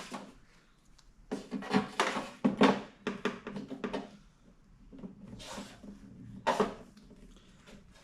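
Hands working a 12-volt socket into a drilled hole in an aluminium top case: a series of irregular knocks, scrapes and rattles, grouped in the first half and again twice near the end.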